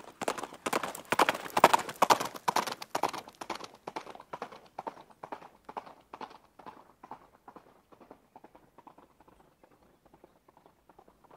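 A rapid run of clip-clop clicks, several a second, loudest in the first few seconds and then fading away.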